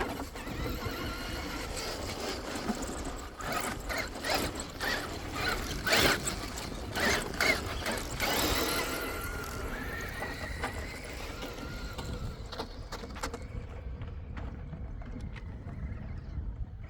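Motor and drivetrain of an Axial SCX6 Honcho RC crawler whining and changing pitch, with a run of clattering knocks in the middle.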